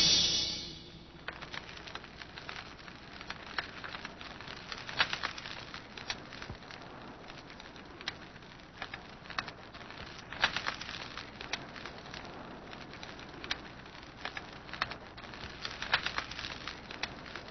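Music fades out within the first second, leaving a faint steady hiss scattered with irregular sharp clicks and crackles, the background noise of an old recording.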